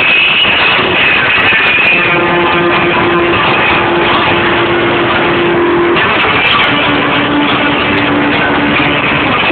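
Loud live band music with electric guitar. A long held note runs from about two seconds in and gives way to a lower held note about six and a half seconds in.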